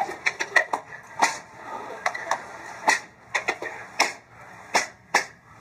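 A series of sharp clicks, about fifteen of them at irregular intervals, some in quick pairs and some up to half a second apart.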